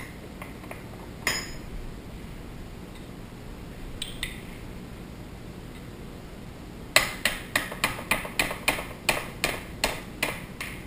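A few scattered metal clicks as shotgun parts are handled, then, starting about seven seconds in, a small plastic-faced mallet tapping about fourteen times in quick succession, roughly four taps a second, on the receiver of an Armsan A612 semi-automatic shotgun.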